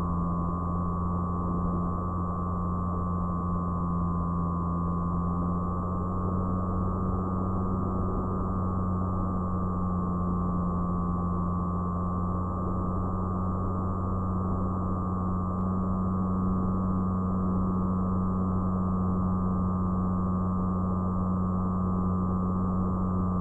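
Motor and propeller of an FPV fixed-wing plane running steadily in cruise: a steady whine that wavers slightly in pitch over a low drone and wind rush, heard through the onboard camera's microphone.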